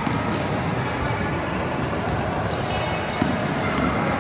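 Basketball bouncing on a gym floor as players run the court, with spectators' voices in the background.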